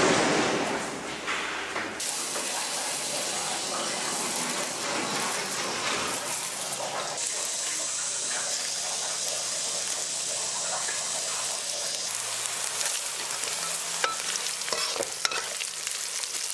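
Food frying in a wok, a steady sizzle, stirred with a metal spatula that scrapes and clicks against the pan in the last few seconds. It opens with a brief louder burst of noise.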